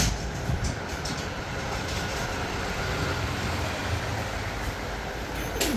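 Steady rumble of road-vehicle noise with no distinct events.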